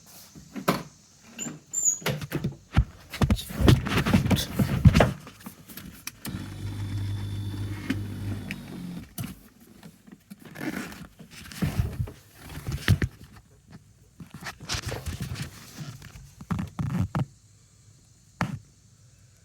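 Handling noises: an irregular run of knocks, clicks and rustles, with a steady low hum lasting about three seconds in the middle.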